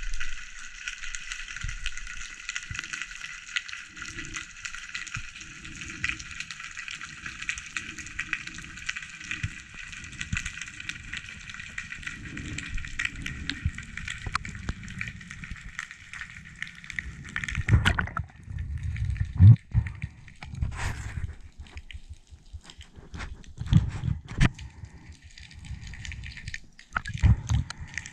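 Underwater sound picked up through a diving camera's housing: a steady crackling hiss of the sea with soft rhythmic low thumps of water moving past the camera. About two-thirds of the way through the crackle drops away, and louder irregular knocks and sloshing of water against the housing take over.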